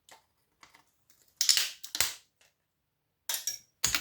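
Sharp clicks and cracks of parts being broken and snapped off a power-supply circuit board, a few scattered at first, the loudest cluster about one and a half seconds in, and more snaps near the end.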